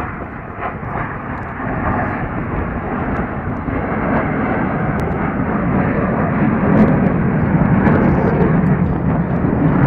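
Aircraft engine noise at an air show: a loud, steady rush that grows gradually louder as the plane comes closer.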